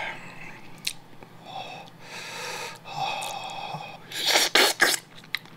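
A person slurping ramen broth from a spoon, with a quick run of short, loud slurps near the end.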